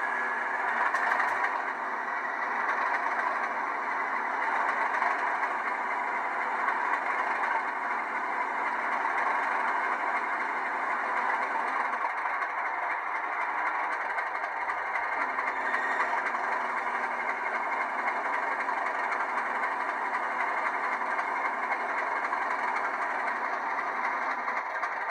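N gauge Class 37 model's DCC sound decoder playing the diesel engine running steadily, heard through the model's tiny speaker, thin and without bass.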